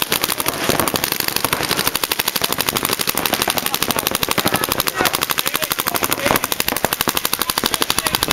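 Paintball markers firing in fast, continuous streams of shots, several guns overlapping into a steady rattle during a match, with faint shouting from players.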